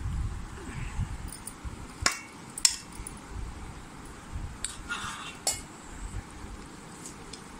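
Several sharp clinks of stainless-steel plates and tableware knocking together, the loudest about two and a half seconds in, with low dull knocks between them.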